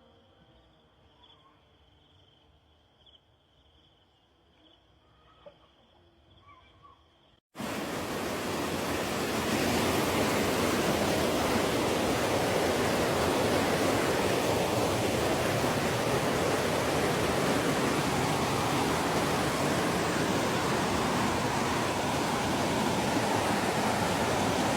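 Near silence for the first seven seconds or so, then the steady rushing of a waterfall cuts in suddenly and runs on evenly.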